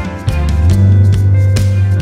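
Background music with a steady beat and a bass line that shifts to a new note about two-thirds of a second in.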